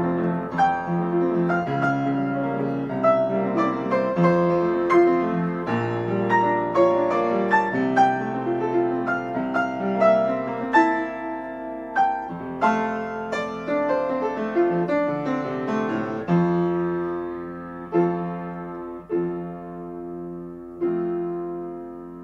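Solo grand piano playing melody over chords. After about sixteen seconds the notes thin out into a few spaced, held chords, and a final chord struck near the end rings and fades as the piece closes.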